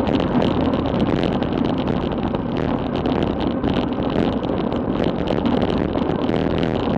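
Steady rush of wind over an action camera's microphone on a bicycle descending at about 40 mph, mixed with road noise from the tyres on the asphalt.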